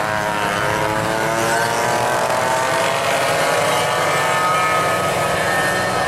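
A pack of vintage racing karts running on the track: many small kart engines whining at once, their pitches rising and falling and overlapping as the karts accelerate and lift.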